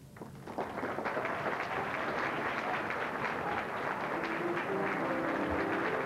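Large audience applauding, a dense steady clatter of clapping that swells up within the first second. A few held musical notes come in faintly about two-thirds of the way through.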